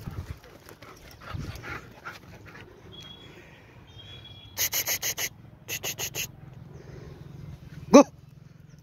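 German Shepherd puppies panting and scuffling on a dirt track. A little after the middle come two quick runs of high-pitched squeaky yips, and near the end one short, loud yelp that rises in pitch.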